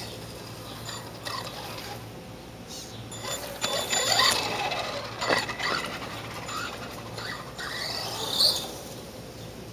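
Tamiya TLT-1 Rockbuster radio-controlled monster truck's electric motor and gears whining as it drives across grass, loudest as it passes close about four seconds in, then fading off. Short high chirps in the background.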